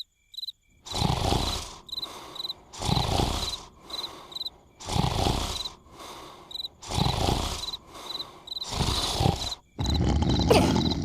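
Snoring: a loud rasping snore about every two seconds, alternating with a softer breath, each with a few short high chirps. Near the end the snoring becomes continuous and louder.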